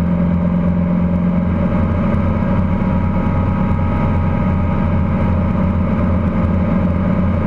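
Guimbal Cabri G2 helicopter in steady flight, heard inside the cabin: its four-cylinder Lycoming piston engine and rotor running as an even, loud, low hum.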